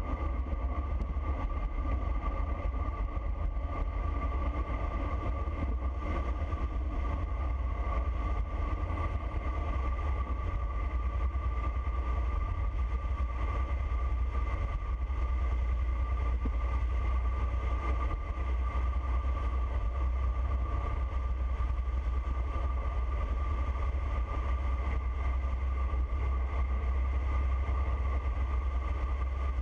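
Wind rushing over the camera microphone during a fast road-bike descent: a steady low rumble, with tyre noise on asphalt and a thin, steady whine over it.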